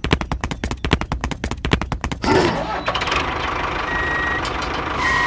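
Tractor engine sound effect: a rapid clatter of about ten knocks a second for about two seconds, then a steady engine hum with a faint high whistle.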